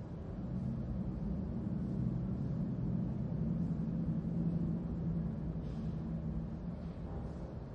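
A low, steady rumbling hum that swells a little and then eases off near the end.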